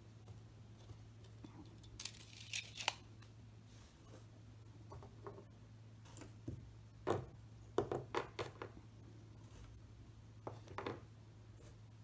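Small miniature figures being picked up and set down on a tabletop gaming mat: short clusters of light clicks and taps, about two seconds in, around the middle and near the end, over a faint low steady hum.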